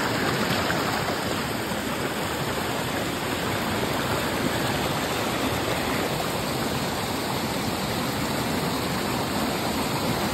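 Waterfall rushing, a steady even noise of falling water.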